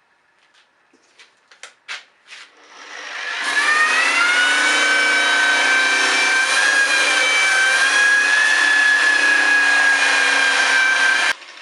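A few light clicks and knocks of handling, then a heavy electric sander with 180-grit paper spins up about three seconds in and runs steadily with a high whine, sanding a Tasmanian oak axe handle. The sound cuts off suddenly near the end.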